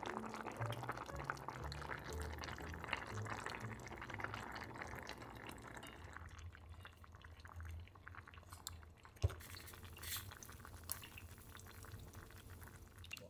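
Kimchi and mackerel braise bubbling at a simmer in a cast-iron pot: a dense crackle of small popping bubbles that eases after about six seconds. There is a single sharp knock about nine seconds in.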